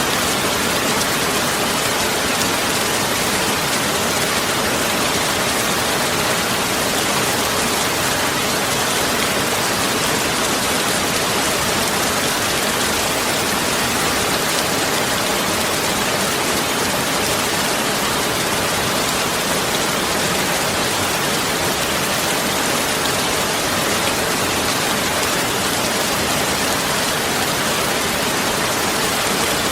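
Heavy rain falling steadily, a dense, even hiss of countless drops with no let-up.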